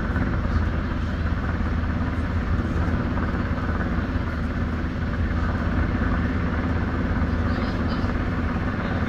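US Coast Guard MH-60 Jayhawk helicopter hovering close overhead while it hoists a rescue basket, its rotor and turbine engines giving a steady, loud, low-pitched running noise.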